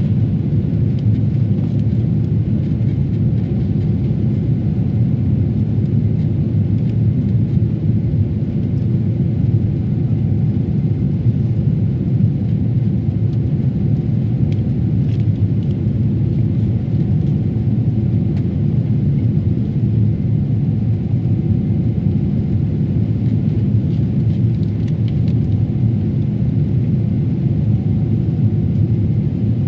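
Cabin noise of a Boeing 777-300ER heard from a seat behind the wing: the steady, loud, low rumble of its GE90 engines and airflow, holding an even level throughout.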